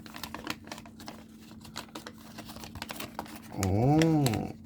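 Light, irregular clicking and rustling of plastic packaging and parts being handled and opened slowly by hand, then a long 'oh' near the end that rises and falls in pitch.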